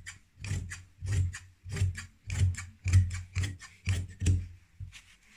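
Large tailor's shears cutting through dark suit fabric on a cutting table: a steady run of about nine snips, roughly two a second, each with a dull low knock. The snips stop about a second before the end.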